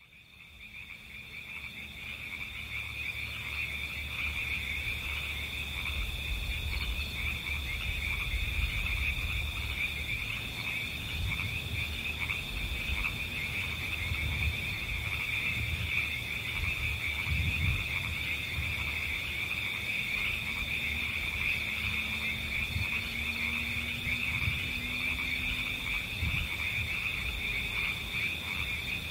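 A dense frog chorus, steady throughout, fading in over the first few seconds, with a low uneven rumble underneath.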